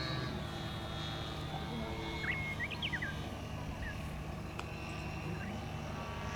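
Radio-controlled F3A aerobatic plane's motor and propeller droning in flight, its pitch rising just at the start as the plane manoeuvres. A few birds chirp about two to three seconds in.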